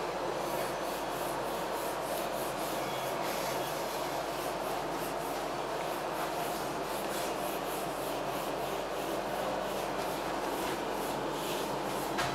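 Whiteboard duster rubbing across the board in quick back-and-forth strokes, about two or three a second, over a steady background hiss.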